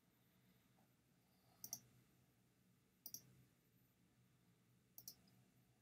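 Three faint computer mouse clicks, each a quick double tick of press and release, one to two seconds apart.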